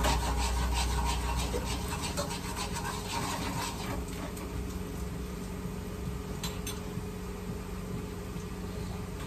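Onions frying in oil in a metal pan while being stirred, the spatula scraping and rasping against the pan. The strokes are dense for about the first four seconds and then thin out, over a steady low hum.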